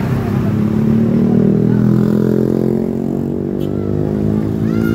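A large bus's engine running steadily as it drives past, a loud, even drone. Voices come in near the end.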